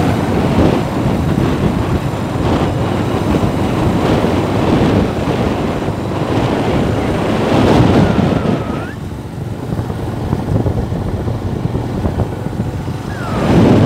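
Loud, uneven rushing noise of wind buffeting the microphone, easing off about nine seconds in and picking up again near the end.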